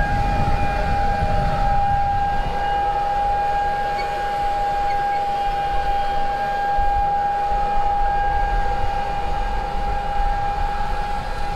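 Steady high whine of a camera drone's propellers holding one pitch, with low wind rumble on the microphone.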